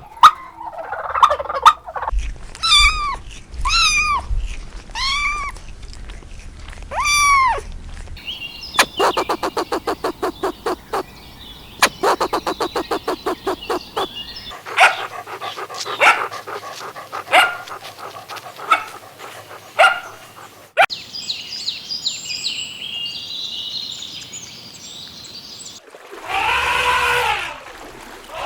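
Calls from several different animals, one clip after another. First come four separate calls about a second apart, then a quick run of short pulses, scattered single calls, high chirping, and a long rising-and-falling call near the end.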